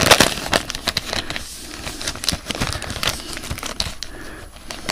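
Trading card pack wrapper crinkling as the pack is opened and the cards are handled: dense crackling in the first second or so, then sparser, quieter crackles and clicks.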